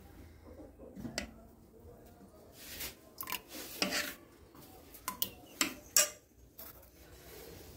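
Dishes and cutlery clinking and knocking: a scattered series of sharp clinks at uneven intervals, the loudest about six seconds in.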